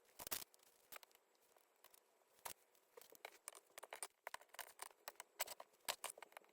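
Faint rustling and light clicks of fabric quilt blocks being handled and pinned: a short cluster at the start, a single tap about two and a half seconds in, then frequent small clicks and rustles from about three seconds on.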